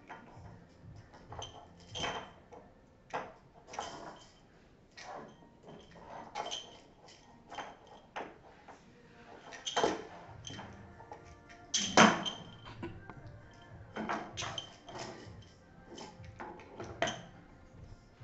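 A small plastic toy being batted around by two kittens, knocking and clattering on wooden floorboards in irregular hits, some with a brief ring. The sharpest hits come about ten and twelve seconds in.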